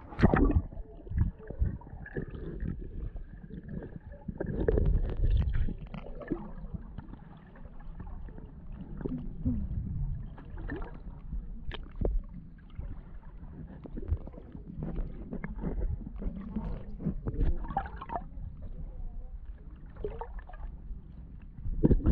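Water heard through a submerged GoPro: muffled low rumbling and sloshing with bubbling and scattered knocks, loudest just at the start as the camera plunges under in a burst of bubbles.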